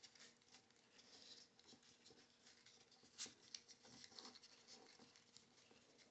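Faint rustling and scratching of a strip of printer paper being rolled by hand into a tight spiral tube, with a sharper crinkle about three seconds in.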